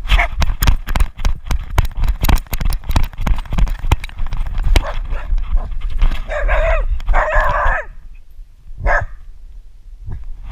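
Rapid knocking and rustling against a dog-mounted camera as the dog moves, then the dog barks: two drawn-out, yelping barks about six and seven seconds in and a short one near nine seconds.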